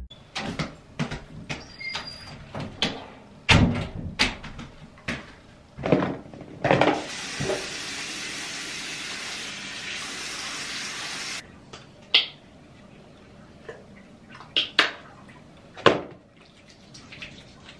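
Bathroom sink tap running for about four seconds and cut off suddenly, with scattered knocks and clicks of small items handled at the sink before and after.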